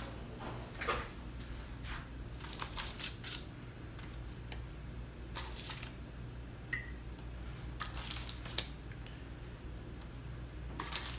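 Light clicks and scrapes of a metal fork lifting hot oven-fried eggplant slices off parchment paper and setting them into a glass baking dish, scattered a few at a time over a low steady hum.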